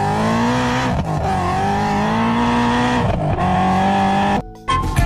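Car engine accelerating through the gears: the pitch climbs steadily, drops at two gear changes, then cuts off abruptly near the end.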